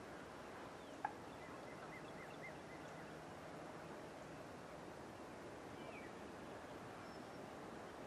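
Wild turkeys calling faintly: a quick run of about five short notes just after a sharp click about a second in, and a single gliding call later, over a steady background hiss.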